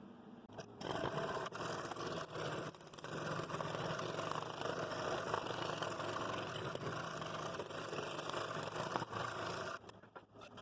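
Power woodworking tool running under load on wood, a steady scraping whir that starts about a second in and stops near the end.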